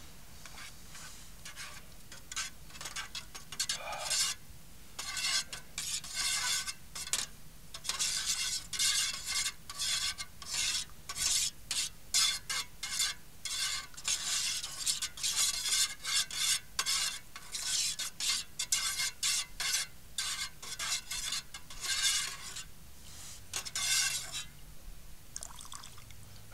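A utensil stirring and scraping in a dish, in quick irregular strokes about two a second, starting about two seconds in and thinning out near the end.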